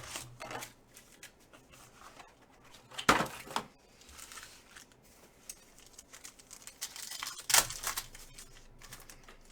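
Foil trading-card packs being torn open and crinkled, with two loud rips, about three seconds in and again about seven and a half seconds in, and softer crinkling between them.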